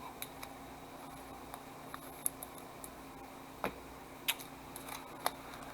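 Trading cards being handled and flipped through by hand: a few scattered, faint clicks and taps of card stock over a steady low room hum.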